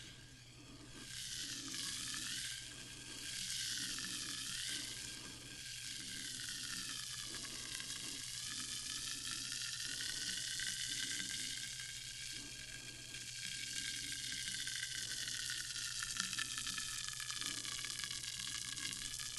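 Sparkling water fizzing: a dense, steady crackle of bursting carbonation bubbles, with a hollow resonance that slowly wavers up and down in pitch.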